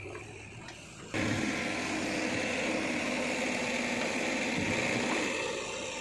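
Diesel engine of a JCB 3DX backhoe loader running under load while a bucketful of dry soil pours into a tractor trailer with a rushing sound. The sound jumps abruptly louder about a second in and eases a little near the end.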